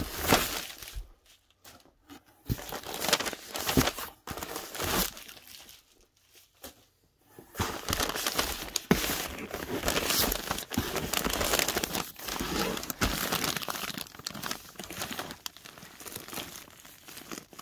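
Plastic mailer envelopes and the cardboard box crinkling and rustling as a hand digs through the packages inside. The rustling comes in irregular bursts, pauses briefly around six seconds in, then runs almost continuously.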